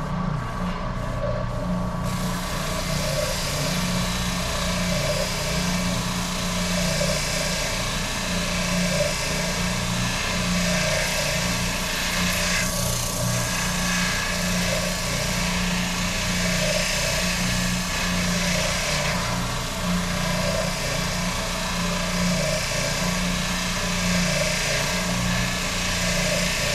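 Electric power sander running steadily with a low motor hum, its abrasive hissing against the wooden guitar body from about two seconds in until just before the end.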